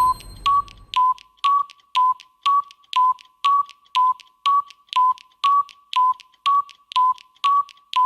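Digital countdown timer's electronic tick-tock: short beeps, each with a click, two a second, alternating between two slightly different pitches like tick and tock. A brief low rumble sounds under the first second.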